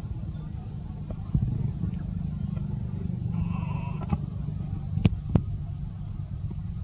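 A steady low rumble, with a brief high tone just past the middle and two sharp clicks a fraction of a second apart soon after.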